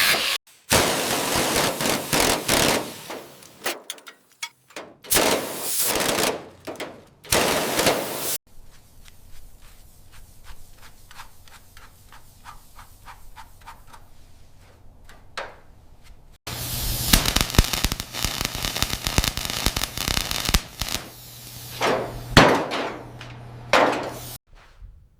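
A run of workshop noises with abrupt cuts between them: loud hissing bursts, a quieter stretch of evenly spaced clicks at about three a second, then a loud rasping stretch over a steady low hum with a few sharp knocks.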